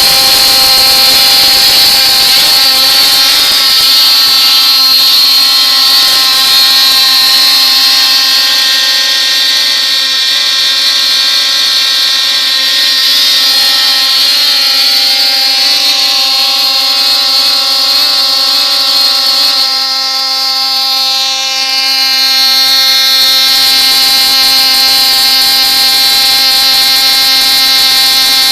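RC car motor running at high speed in a steady whine during a burnout, its wheels spinning in place. About two-thirds of the way through the pitch dips and then climbs back up.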